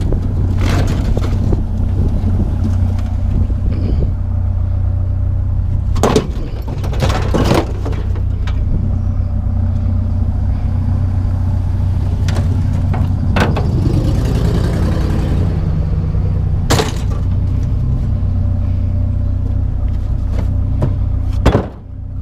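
Truck engine running with a steady low hum, with several sharp knocks and clatters over it.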